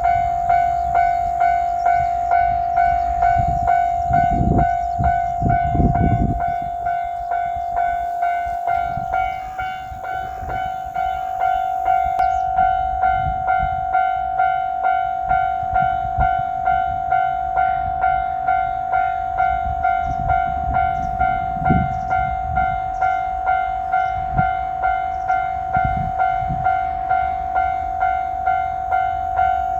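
Japanese level-crossing warning bell ringing steadily, its electronic 'kan-kan' tone repeating about twice a second. Low rumbling swells come in about four to six seconds in and again around twenty seconds in.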